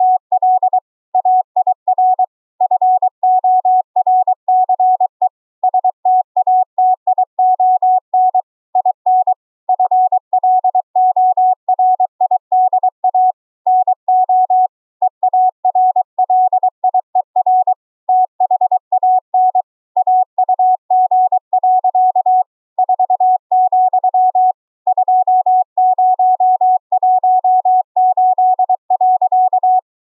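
Morse code (CW) sent by hand as a keyed tone near 700 Hz, carried over a Discord voice call: rapid short and long beeps in continuous strings, with brief pauses between groups.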